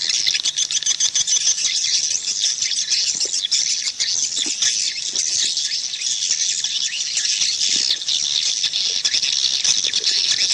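A flock of edible-nest swiftlets twittering in a dense, unbroken chatter of rapid high chirps and clicks. This is a swiftlet calling sound, the kind played to lure the birds to a nest house.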